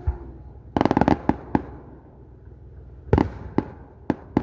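Fireworks shells bursting: a quick cluster of sharp cracking bangs about a second in, a few single bangs, then another loud burst of bangs about three seconds in.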